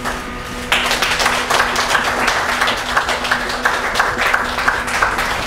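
A small audience applauding, the clapping breaking out suddenly just under a second in and holding steady.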